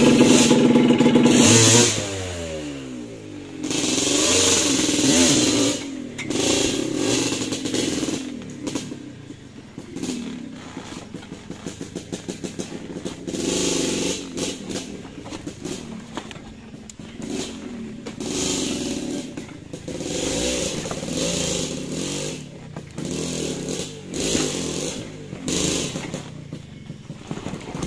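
Motorcycle engine running under load, dropping off sharply about two seconds in as the engine speed falls. After that the throttle is opened and eased off again and again, the pitch rising and falling.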